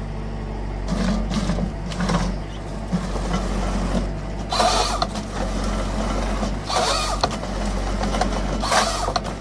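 Heavy logging machine's engine running steadily, with three short harsh bursts of noise about four and a half, seven and nine seconds in.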